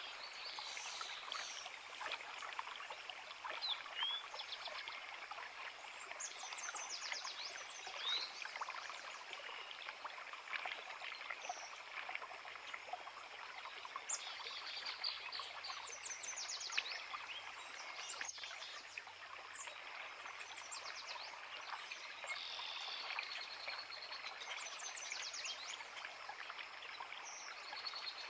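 A forest creek running steadily, with songbirds singing over it: a high, rapid trilled phrase comes back every several seconds, between scattered shorter chirps.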